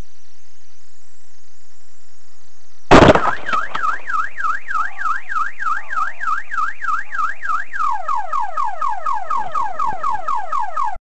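A sudden loud bang, then a car alarm goes off: a fast up-and-down warble that about five seconds later switches to quick repeated falling sweeps, then cuts off suddenly.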